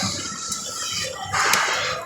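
Aristocrat Lightning Link: Moon Race slot machine playing its electronic game music and sound effects as the reels spin, with a few sharp clicks and a louder bright burst about one and a half seconds in.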